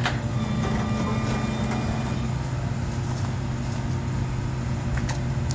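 A motor vehicle's engine running at a steady speed, an even low hum.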